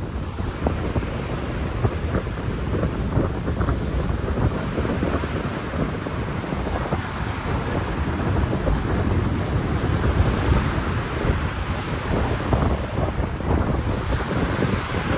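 Strong wind buffeting the microphone, a rough low rumble at a fairly even level, over the wash of a choppy sea.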